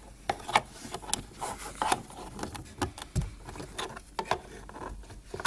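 Plastic door trim being handled and pressed into place: scattered small clicks, taps and rubs as its hooks and clips are fitted, with a sharper click near the end.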